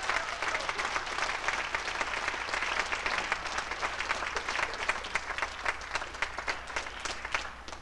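Theatre audience applauding at a scene's end, the clapping thinning out and fading over the last couple of seconds.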